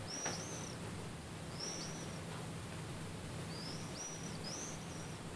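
About five short, high-pitched chirps, each rising and then falling, spaced irregularly, from an unseen animal in the attic that the owner suspects is a bird. A steady low hum runs underneath.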